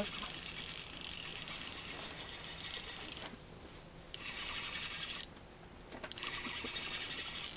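Spinning reel being cranked to bring in a hooked fish, its gears whirring with fine rapid clicking. It goes in three spells, with two short pauses in the cranking.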